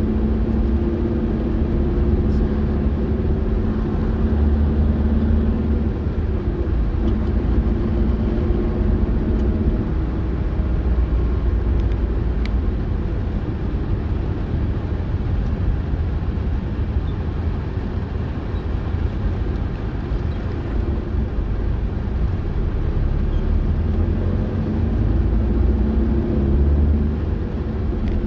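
Car driving along: a steady low rumble of engine and road noise, the engine note rising and falling a little.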